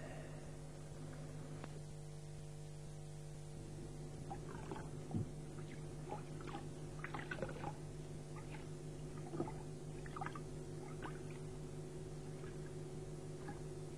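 Water splashing and dripping in small irregular bursts, as in washing at a basin, over a steady low electrical hum.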